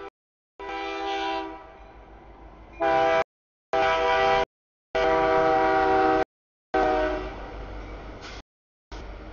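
CN diesel locomotive's air horn sounding a series of chord blasts as it approaches and enters the grade crossing; the longest blast runs a little over a second. The sound cuts out abruptly between several of the blasts.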